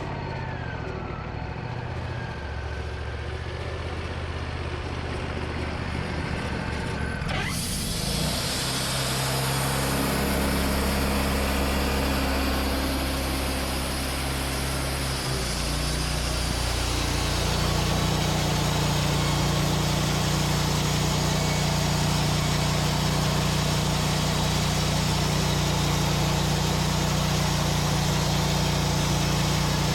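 Sawmill engine running steadily. A broad hiss joins it about seven seconds in, and about halfway through the engine speeds up and holds a higher, steady pitch.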